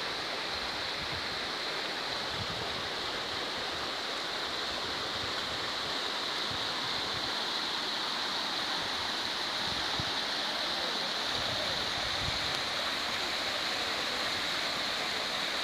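Fast-flowing brown floodwater rushing past and churning around tree trunks: a steady rush of water.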